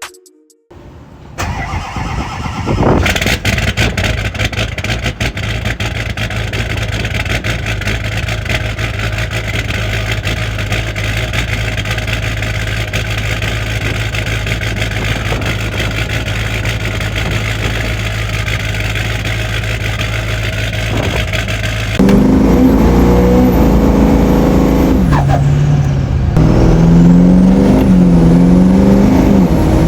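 LBZ Duramax 6.6-litre V8 diesel engine starting and settling into a steady idle with a rapid diesel clatter. About 22 seconds in it becomes louder, with the pitch rising and falling as the engine revs under load.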